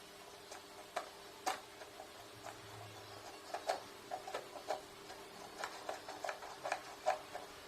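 Light, irregular clicks and taps, coming faster in the second half, as small fan parts are handled and worked on.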